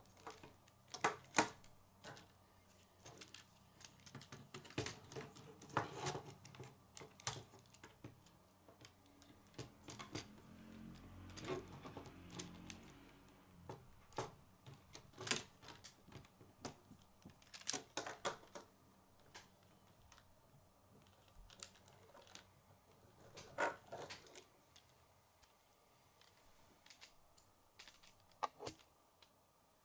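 Plastic K'nex rods and connectors clicking and snapping together as pieces are fitted into a model by hand. The clicks are sharp and come irregularly, singly or in small clusters.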